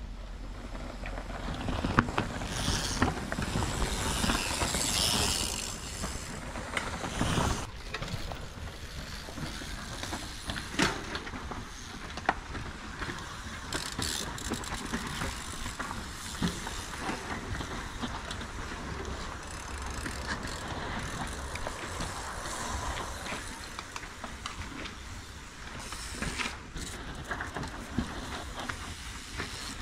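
Mountain bikes passing one after another on a dirt forest trail: tyres over dirt and roots, with frequent clicks and rattles from the bikes. It is loudest a couple of seconds in as riders pass close, and there is a brief break about seven seconds in.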